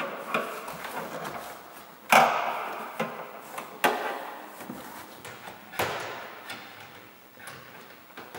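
A 22 mm spanner clacking and knocking against the roof antenna's nut and cable fitting under a VW Polo 6R's roof lining. There are about four loud sharp knocks and a few lighter ones, each ringing out briefly.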